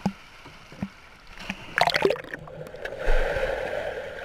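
Swimming-pool water splashing around a camera at the waterline, with a loud splash about two seconds in. About three seconds in the camera goes under and the sound turns to a steady, muffled underwater rush of bubbles.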